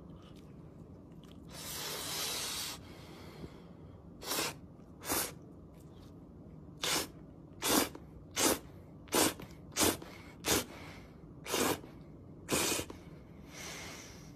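A person slurping food off chopsticks: one longer airy suck about two seconds in, then about ten short slurps at uneven intervals.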